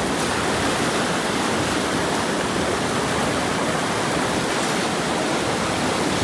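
Steady rush of floodwater pouring through a water gate, an even, unbroken noise.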